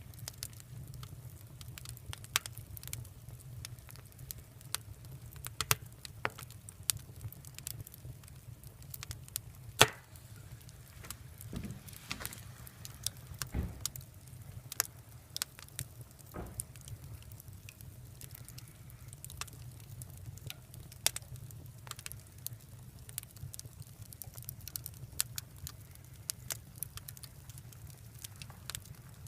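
Wood fire (bonfire) crackling, with irregular sharp pops and snaps; the loudest pop comes about ten seconds in.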